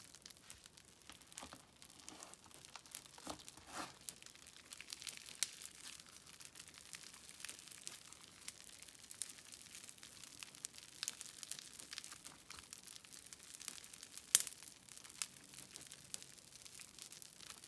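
Slime being squished and stretched by hand, giving off irregular crackling and popping clicks, with one sharper pop about 14 seconds in.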